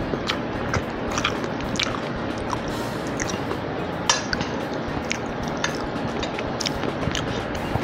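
Close-miked chewing of a mouthful of food: scattered wet mouth clicks and smacks over a steady background hiss, with a sharper click about four seconds in.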